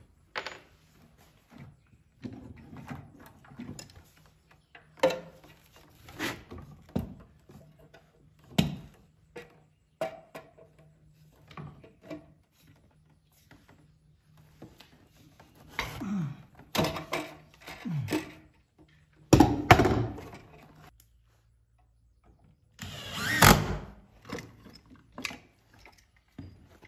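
Knocks, taps and clatter of hand work as a plastic washing machine outlet box is fitted against wooden wall framing, with louder bunches of clatter about two-thirds of the way in and again near the end. A faint steady hum sits underneath and cuts off suddenly about three-quarters of the way through.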